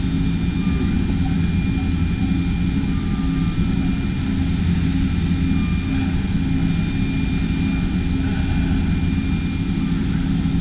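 Matsuura LX-160 five-axis CNC milling machine running a cut in simultaneous five-axis motion with flood coolant spraying inside the enclosure. The noise is steady and unbroken, with a steady high whine over a low hum.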